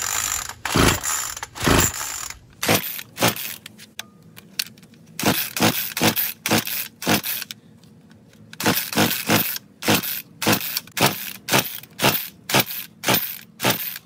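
Troy-Bilt string trimmer being pull-started with the choke on: repeated quick yanks on the recoil starter cord, about two a second in runs with two short pauses, the engine turning over but never firing. It is a no-start even with spark restored and the primer bulb pumped.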